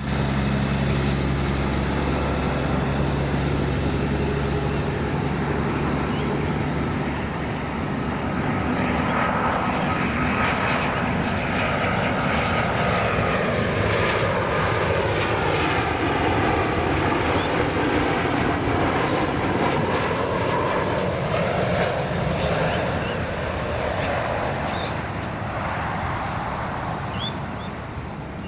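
Airliner engines passing close by: a loud, sustained rumble and roar with a slowly sweeping tone, easing off near the end.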